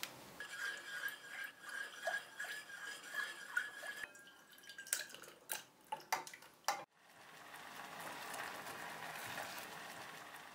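Sliced banana in juice tipped from a glass bowl into a nonstick saucepan of sugar syrup: a run of sharp clicks and splashes. After that comes the steady hiss of the banana sauce cooking in the pan.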